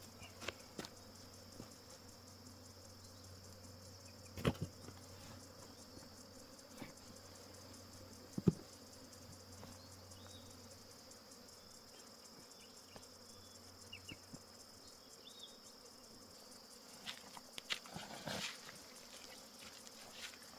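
Quiet bush ambience: a steady high-pitched insect drone, with a few short chirps in the middle and a handful of sharp knocks, the loudest about eight seconds in.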